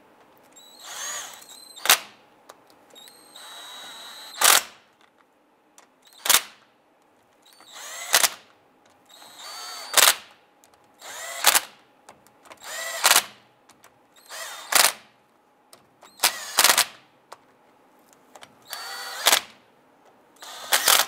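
Cordless driver with a socket spinning down differential cover bolts one after another: about eleven short rising whirs, one every couple of seconds, each ending in a sharp snap as the bolt seats snug.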